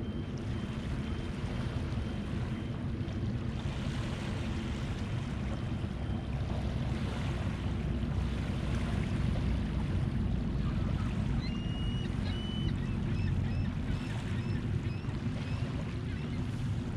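Small waves lapping on a pebbly shore over a steady low rumble. From about two-thirds of the way in, a bird calls in a run of short high chirps, about two a second.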